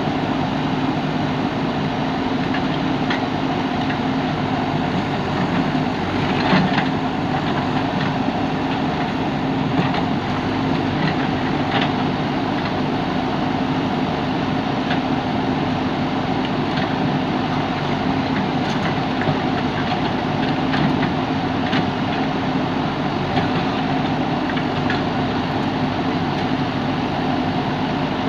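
Diesel engine of a JCB backhoe loader running steadily, with occasional short knocks over it, the loudest about six and a half seconds in.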